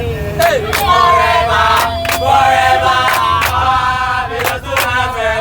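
A group of voices singing together in chorus, with sharp hand claps keeping a rough beat.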